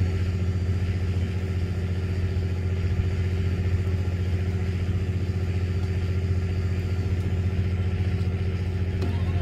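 A fishing boat's engine running steadily, a low, even hum.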